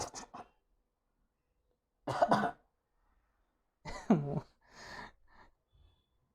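A person coughing and clearing the throat in short separate bursts, the loudest about two and four seconds in, the second of these with a voiced sound falling in pitch. The coughs are set off by a cotton bud with something spicy tickling inside the nose in a bid to make them sneeze.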